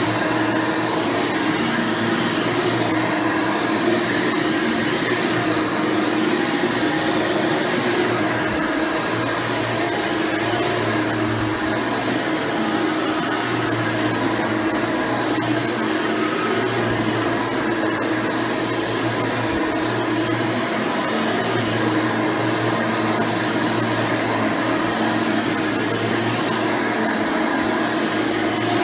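Hoover Elite Supreme upright vacuum (model U5071-930) running steadily, with its 7-amp motor and replacement 20-blade fan. It sounds like a constant rush of air over a steady hum, and a lower hum swells and fades every couple of seconds.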